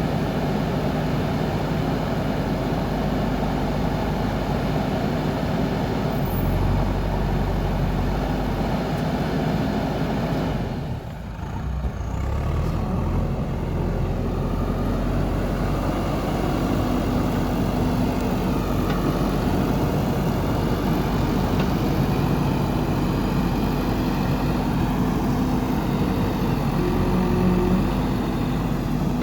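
Diesel engine of a JCB backhoe loader running steadily while it digs and loads mud, with a brief dip about eleven seconds in.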